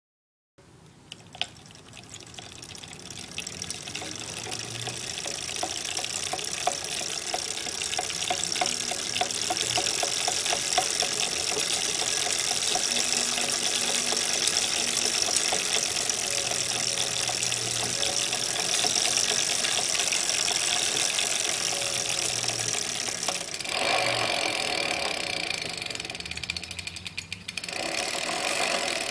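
A2B Metro G2 electric bike in motion: a steady rushing noise that builds over the first several seconds and then holds. A run of fast, light ticks comes in the middle, and the noise changes and dips near the end.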